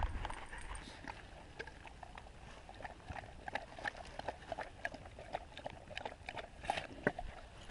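Bird dog lapping water from a squeeze bottle held to its mouth: a quick, irregular run of wet smacking clicks.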